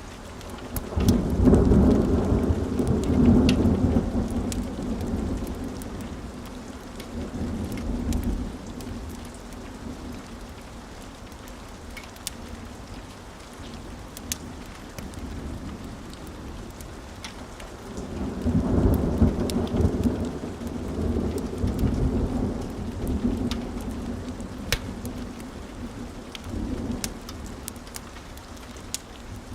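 Steady rain with two long rolls of rumbling thunder, the first starting about a second in and fading over several seconds, the second about two-thirds of the way through. Scattered sharp pops of a crackling wood fire sound throughout.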